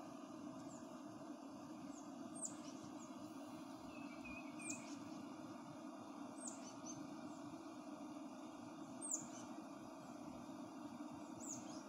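A bird outdoors repeating a short, high call that sweeps downward, five times about two seconds apart, over a steady low background hum.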